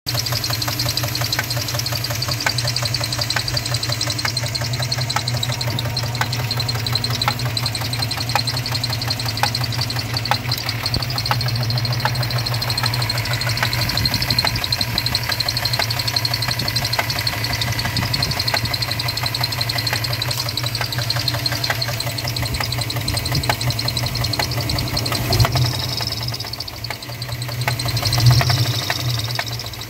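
Pickup truck engine running at idle with a rapid, steady knocking from inside the engine, which the owner takes for a blown engine. The sound dips, then gets briefly louder near the end.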